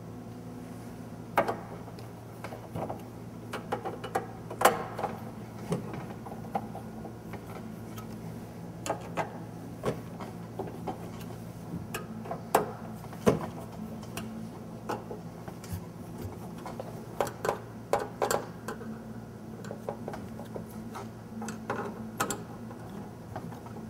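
Screwdriver loosening screws on a sheet-metal machine back panel: irregular small metallic clicks and ticks, a few a second, over a steady low hum.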